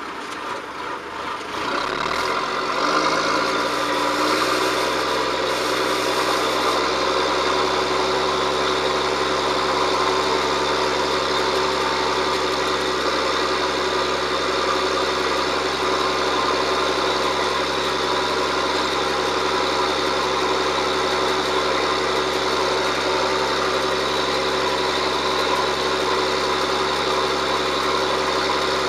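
John Deere 7710 tractor's six-cylinder diesel engine revving up about two seconds in, its pitch rising, then running steadily under a constant note.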